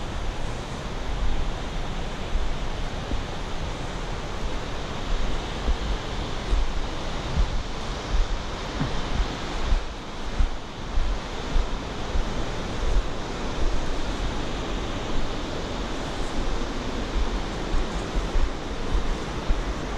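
Wind buffeting the microphone in irregular gusts over a steady rushing hiss.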